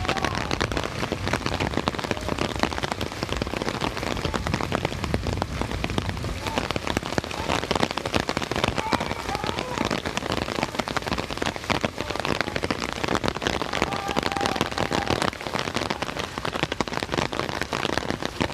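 Rain falling steadily, a dense patter of close drops hitting the ground and nearby surfaces.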